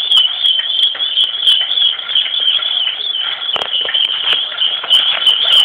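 Shopping cart squealing as it is pushed along: one high, unbroken, siren-like whine that wavers slightly in pitch, with light clicks over it.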